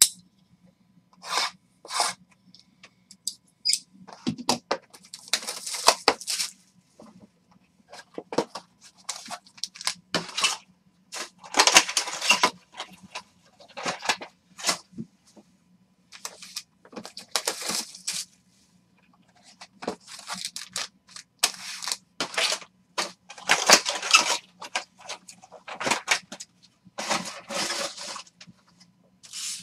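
Handling and opening trading-card boxes and their silver foil-wrapped packs: repeated bursts of crinkling and tearing foil and rustling cardboard, each lasting a second or two, with short pauses between.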